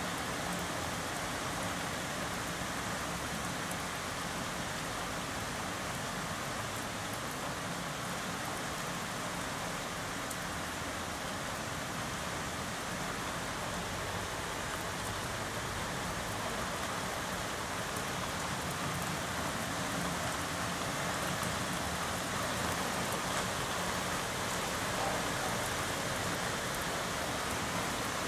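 Steady thunderstorm rain falling, an even hiss that holds at the same level throughout.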